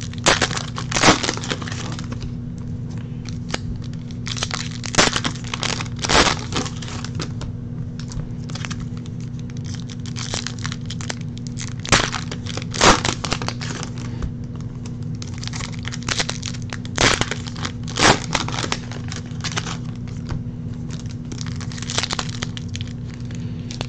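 Foil trading-card pack wrappers crinkling and tearing as packs are opened by hand, in irregular bursts, over a steady low hum.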